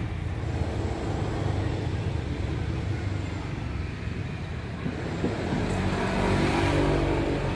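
Street traffic: a motor vehicle's engine running, getting louder for a couple of seconds near the end as it comes close.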